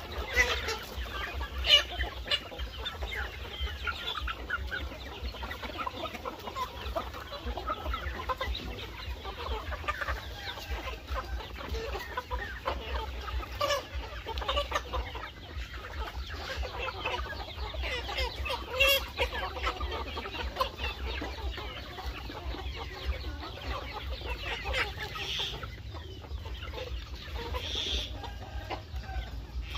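A flock of young chickens clucking steadily while they crowd round and eat, with occasional sharp clicks among the calls.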